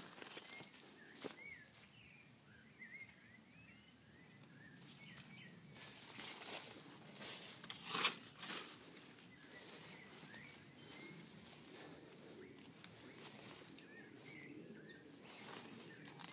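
Walking through grass and brushing past banana leaves: several rustles and knocks, the loudest about eight seconds in as a dry banana leaf scrapes close by. Small birds chirp faintly now and then over a faint steady high insect tone.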